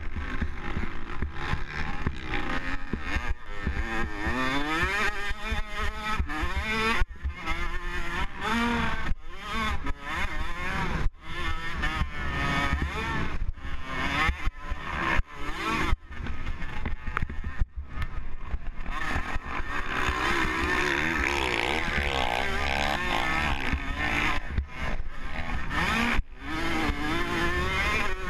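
Motocross bike engine revving up and down through the gears, with brief cuts in the sound several times as the throttle is chopped, over a low wind rumble on the onboard microphone.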